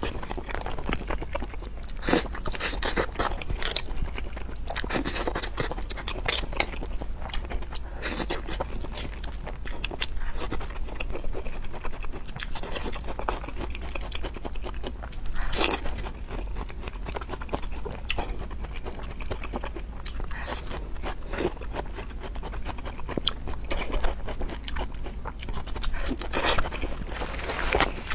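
A person eating close to a clip-on microphone: repeated crunching bites and chewing, with sharp crunches spread throughout. The food is glazed seafood and carved cucumber garnish.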